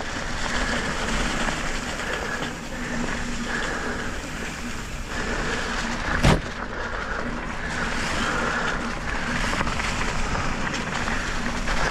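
Electric mountain bike riding over a dry, leaf-covered dirt trail: a steady rush of tyre and trail noise with a faint steady hum that comes and goes. A single sharp knock comes about six seconds in.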